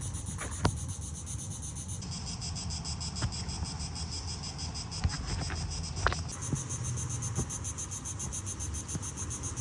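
Insects chirring outdoors: a high-pitched buzz of fast, evenly spaced pulses that goes on without a break. Underneath is a low rumble, and a few sharp clicks come about half a second in and around five and six seconds in.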